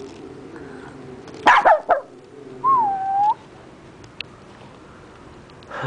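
Dog sneezing three times in quick succession, sharp noisy bursts. Just after them comes a clear whistle-like tone that dips and then rises.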